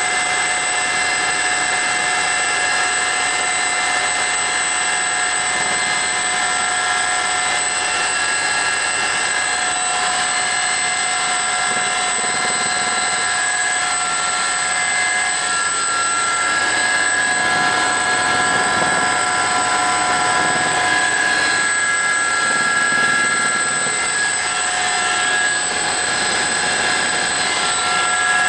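Aérospatiale Gazelle turbine helicopter in flight, heard from inside the cabin: a steady whine of several high tones over a constant rushing noise.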